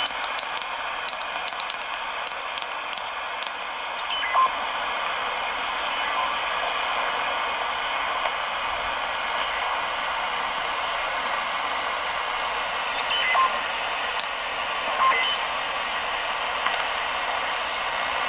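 Radio Shack HTX-10 10-meter transceiver's receiver hissing on upper sideband as the dial is tuned across an empty band, with a quick run of short clicks in the first three and a half seconds and a few brief faint whistles later on.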